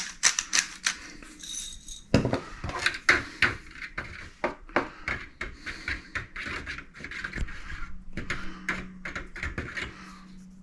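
A utensil tapping and scraping against a bowl in irregular clicks a few times a second, as the egg, buttermilk and hot-sauce wash is stirred.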